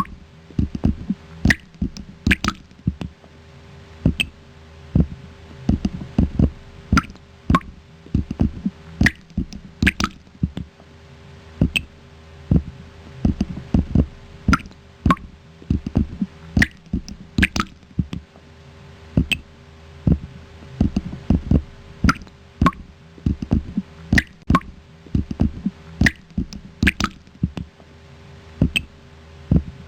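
A person imitating water drops with the mouth: a steady run of short, hollow plops, about two or three a second and often in quick pairs, with a faint steady hum behind.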